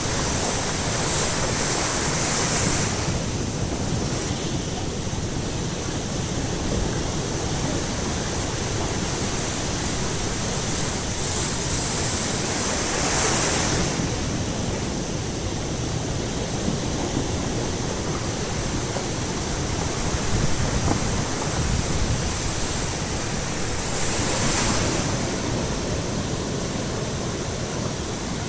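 Baltic Sea surf breaking on the shore: a continuous wash of waves, with louder hissing swells near the start, about halfway through and near the end.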